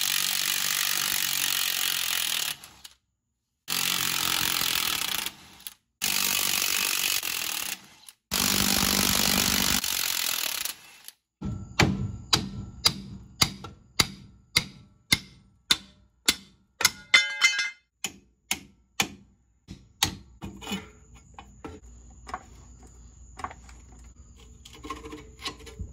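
A power tool runs in four bursts of a couple of seconds each, likely an impact wrench breaking loose the leaf spring nuts. Then comes a run of sharp knocks about twice a second for some eight seconds, a few of them ringing metallically.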